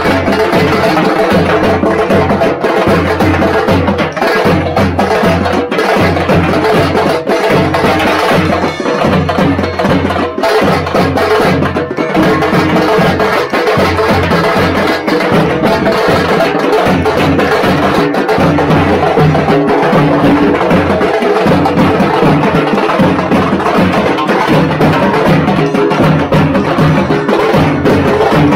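Loud ensemble of tamate (thappattai) frame drums beaten with sticks, together with large cylindrical drums, playing a dense rhythm without a break.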